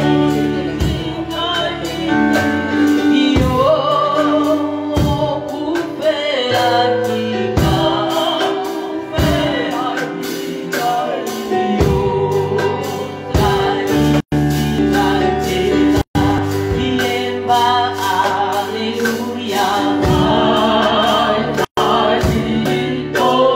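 Gospel praise song sung by several women's voices together, over band accompaniment with sustained low notes and drum hits. The sound cuts out for an instant three times in the second half.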